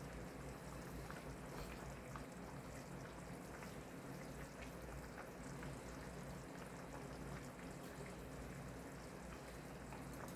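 Pot of chicken vegetable soup simmering on the stove: faint, steady bubbling with scattered small pops.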